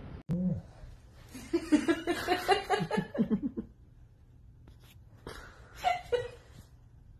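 A person laughing in a string of short choppy bursts, with another brief burst of laughter later on. A short falling vocal sound comes just before the laughter begins.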